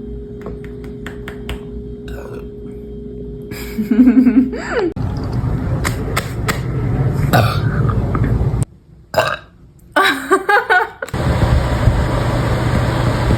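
A young woman burping: one loud burp about four seconds in and another about ten seconds in, with a rushing hiss between them and after.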